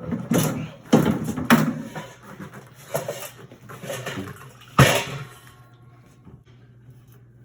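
A series of sharp knocks and clanks, about five, from work on a top-load washer being taken apart; the loudest comes about five seconds in, after which only a faint hum remains.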